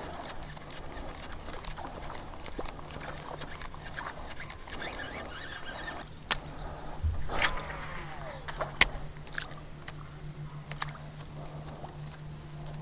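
Fishing rod and reel in use on the water. A surface lure is worked with faint splashes and clicks. About six seconds in there is a sharp click, then a cast: a swish and the whir of the reel spool falling in pitch, ending in another sharp click. A steady low hum and a steady high whine sound underneath.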